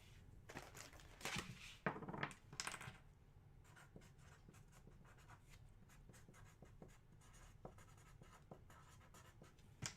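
Faint scratching of a pen writing on paper, in a few short strokes during the first three seconds, then only faint scattered ticks.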